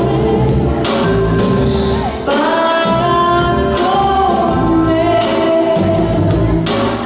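Song with a woman singing sustained, gliding lines over a full instrumental backing.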